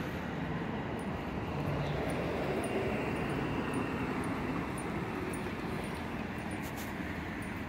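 Steady hum of road traffic, swelling slightly about two to four seconds in.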